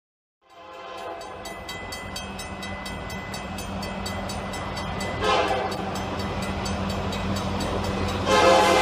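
Railroad crossing bell dinging in a rapid, even rhythm over the low rumble of an approaching diesel freight locomotive. The locomotive's horn sounds briefly about five seconds in, then a louder horn blast starts near the end.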